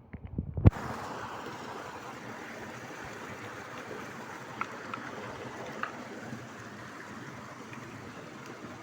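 Steady rush of flowing river water, starting suddenly after a few knocks and a loud thump, with a couple of faint clicks in the middle.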